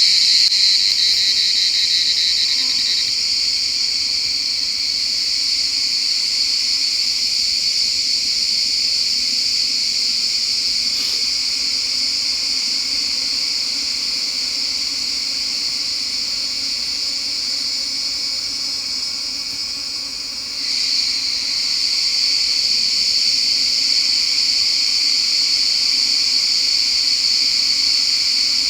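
Steady, high-pitched drone of a forest insect chorus. It drops away briefly about two-thirds of the way through, then swells back.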